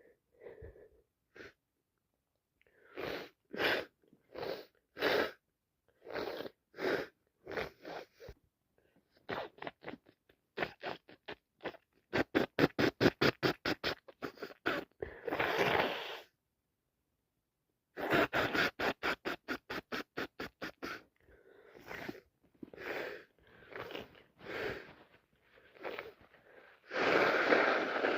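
A person sick with a bad cold sneezing and coughing in fits: runs of short bursts, fastest about halfway through, with a longer, loud burst near the end.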